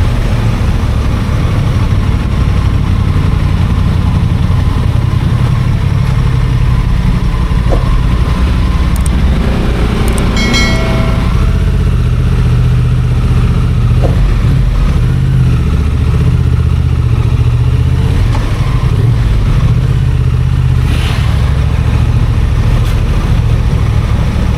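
Honda Transalp XL750's parallel-twin engine running as the motorcycle rides along, heard as a steady low rumble under a haze of wind and road noise. About ten seconds in, a short pitched tone sounds for about a second.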